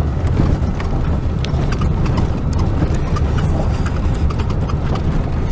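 Chevrolet Trailblazer crawling over a rough, rocky trail, heard from inside the cabin: a steady low rumble with constant irregular clicks and rattles as the tyres go over rocks and gravel.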